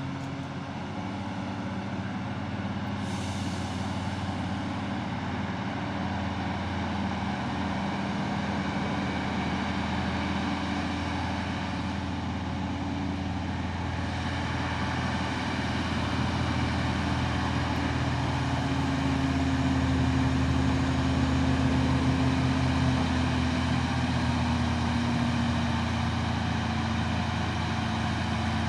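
Heavy truck's diesel engine running steadily, growing louder through the middle of the stretch and easing a little near the end.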